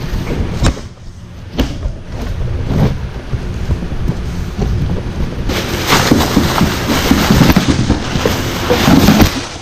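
A new car headlight is handled in its packaging: a few knocks against the cardboard box in the first three seconds. From about halfway, loud, continuous crinkling of its plastic wrapping and bag as it is pulled out of the box.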